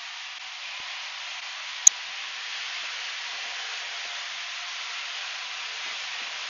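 Truck-mounted extraction vacuum pulling air and water through a flat floor tool (a 'claw') and hose: a steady hissing rush of suction as water is drawn up off a concrete floor. One sharp click about two seconds in.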